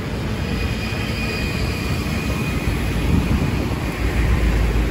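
Road traffic noise: a steady, dense rumble of passing vehicles, heaviest near the end.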